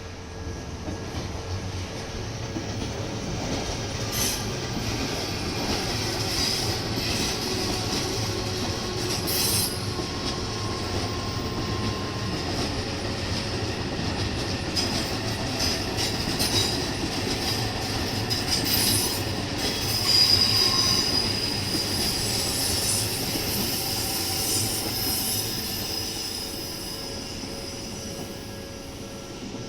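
Odakyu electric train rolling past, with a steady rumble of wheels on rail and high-pitched wheel squeal that comes and goes. The squeal is loudest about twenty seconds in, then the sound eases off.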